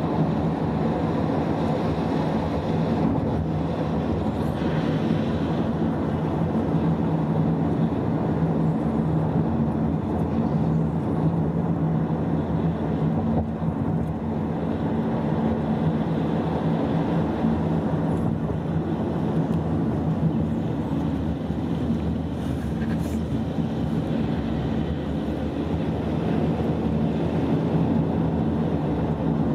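A vehicle on the move: a steady engine drone with a constant hum, under an even wash of road noise.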